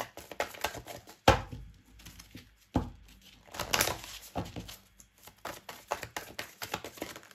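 A deck of oracle cards shuffled by hand: an irregular run of soft clicks and flutters as the cards slide and riffle, with two louder slaps in the first three seconds.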